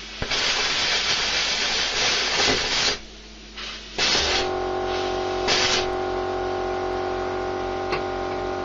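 Air plasma cutter hissing as it cuts, a long burst followed by short ones. About four seconds in, an electric air compressor starts and keeps running with a steady hum and a regular low pulse, kicking in to hold the torch's 4 bar air supply.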